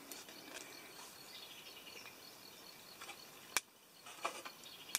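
Faint outdoor background of insects chirping, with a sharp click about three and a half seconds in and a brief soft clatter just after four seconds as a metal cooking pan is lifted off a small wood-burning backpacking stove.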